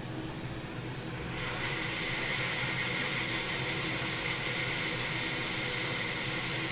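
Hot air rework station blowing a steady hiss of air, getting louder about a second and a half in as its airflow is turned up to 120, with a faint high whine.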